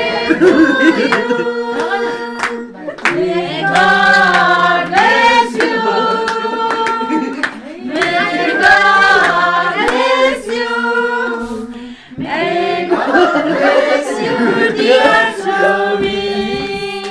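A small group of people singing a birthday song together, with hands clapping along throughout.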